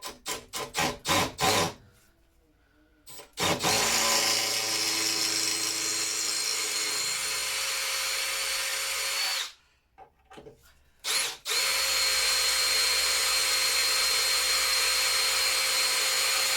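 Power drill drilling out seized screws: a quick run of short trigger bursts, then two long steady runs of about six and five seconds with a steady high whine, with a brief burst between them.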